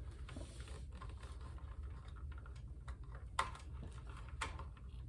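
Small scattered clicks and taps of needle-nose pliers working spade connectors off the treadmill motor leads, with two sharper clicks about three and a half and four and a half seconds in, over a low steady hum.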